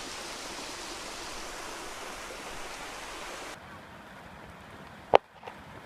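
A steady rushing noise of water cuts off abruptly about three and a half seconds in. A single sharp click follows near the end.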